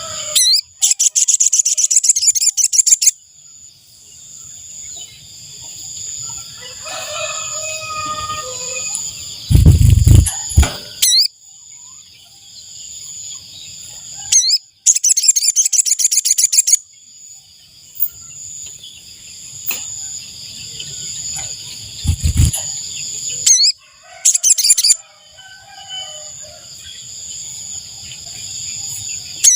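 Sogon bird calling in quick, high-pitched trilling bursts of two to three seconds, three times, over a steady high whine. A rooster crows faintly in between, and two loud low thumps come near the middle and about three-quarters through.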